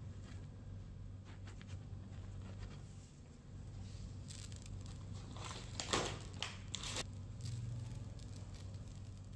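Light kitchen handling sounds: faint ticks as a silicone pastry brush dabs the bread rolls, then sesame seeds pinched and sprinkled by hand onto the rolls, a cluster of light crackly pattering taps around the middle.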